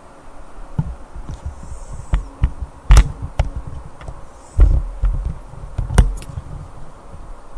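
A sleeping person snoring: irregular rough, buzzing low breaths, with two sharp clicks about three and six seconds in.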